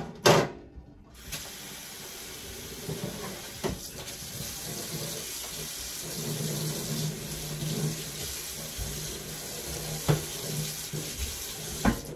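Kitchen faucet running steadily into a stainless steel sink, switched on about a second in, with a loud metal clank at the start and a few lighter knocks.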